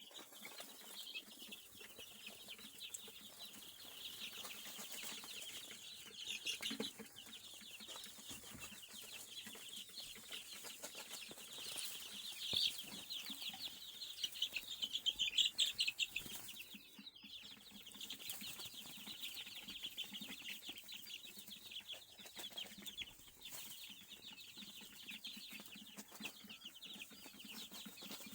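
A brood of chicks peeping continuously, many high chirps overlapping, growing louder for a while about twelve to sixteen seconds in.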